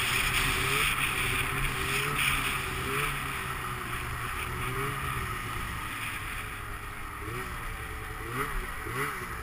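Snowmobile engine running while the sled rides across snow, over a steady hiss. Near the end the throttle is blipped several times in quick rising and falling revs.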